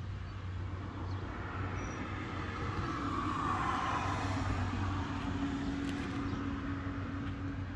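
Background traffic noise: a steady low hum, with a swell of passing-vehicle noise that builds toward the middle and fades.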